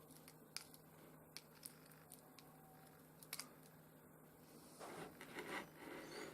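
Near silence with a few faint light clicks and, about five seconds in, a brief soft scraping: a ruler being moved about on a surface among small pieces of rough opal.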